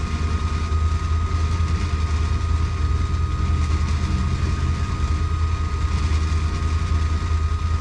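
Side-by-side UTV engine running steadily, a deep even drone with a thin steady high whine over it.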